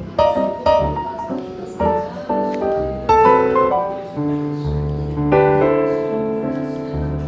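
Smooth jazz piano music: chords and melody notes over held bass notes.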